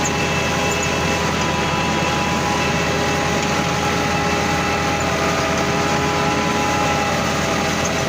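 An engine running steadily at constant speed, with several steady whining tones over its rough hum.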